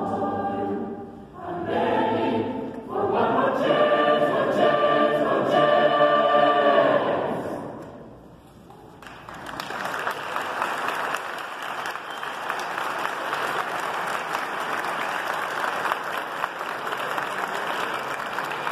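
A mixed choir singing chords that build to a long held final chord, which fades out about seven seconds in. After a brief pause, the audience breaks into steady applause about nine seconds in.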